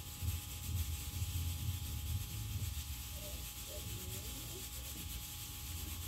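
Refrigerator's hermetic compressor running with a steady low hum, freshly recharged with refrigerant and circulating it.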